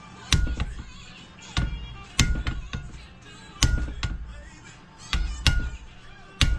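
Hammer blows on a Harley-Davidson panhead flywheel assembly being knocked apart: about nine sharp metal-on-metal strikes at irregular intervals, some in quick pairs, each ringing briefly.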